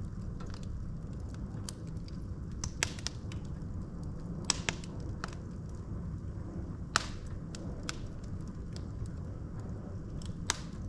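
Wood fire burning in a fireplace: a steady low rumble of the flames with sharp crackles and pops from the burning logs, the loudest snaps a little under 3 s, about 4.5 s, about 7 s and near 10.5 s in.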